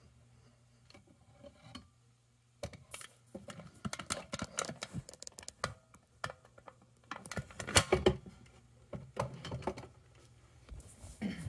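Handling noise from the recording camera being taken up and carried: after a quiet start, a rapid, irregular string of knocks, clicks and rubbing begins about two and a half seconds in, with the loudest knock near eight seconds in.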